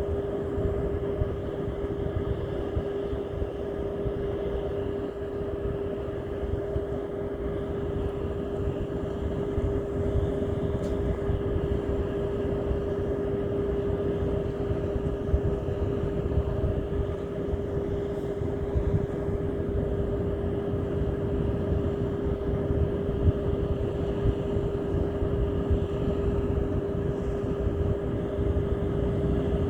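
A motor running steadily, with a constant hum and rough rumble underneath, holding the same pitch throughout.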